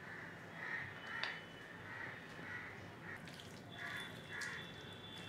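Raw chicken strips being mixed by hand into a thick, wet spice marinade in a glass bowl: faint, soft wet sounds coming at irregular intervals.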